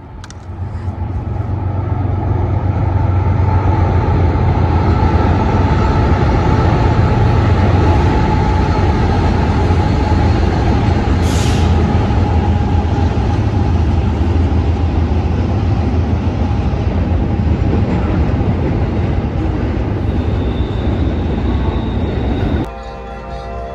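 Diesel-hauled intermodal freight train crossing a steel truss bridge: a steady, loud low rumble of locomotive engines and rolling container cars, building over the first couple of seconds and stopping abruptly near the end.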